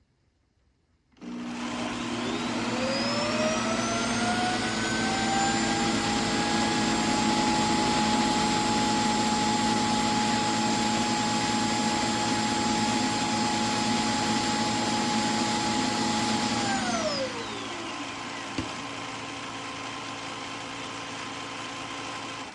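A vacuum's suction motor starts abruptly about a second in, its whine rising as it spins up, then runs steadily. Near the end the whine falls away as the motor winds down, while a quieter running noise carries on until it cuts off.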